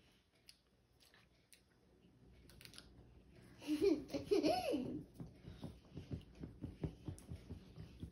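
A young child's brief laughing babble about four seconds in, the voice sliding up and down in pitch. After it, soft regular thumps come at about three a second.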